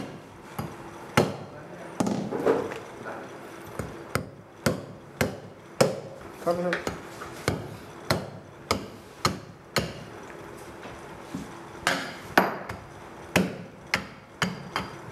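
Butcher's meat cleaver chopping through a goat carcass's neck and rib bones on a stone slab, splitting it down the middle. Sharp chops follow one another about two a second, stop briefly about two-thirds in, then resume.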